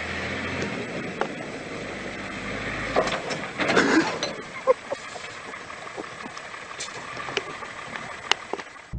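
Tanker truck's engine running as it drives and slides over snow, with a few sharp clicks and brief voices about three to four seconds in.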